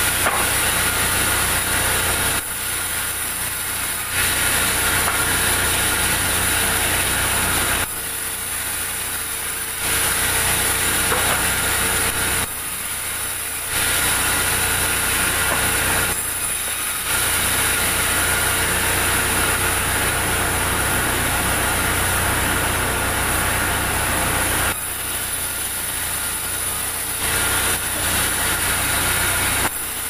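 Large sawmill band saw running steadily as timber is fed through the blade. It gets louder during about six cuts of a few seconds each and eases briefly between them.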